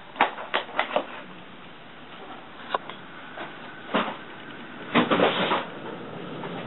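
Workbench handling noises: a quick run of light knocks and clicks, then single knocks a few seconds apart and a brief rustling scrape about five seconds in, as tools and parts are put away.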